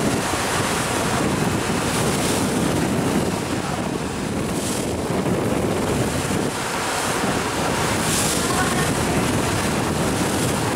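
Wind buffeting the microphone over a steady rush of sea water, on the deck of a moving ferry.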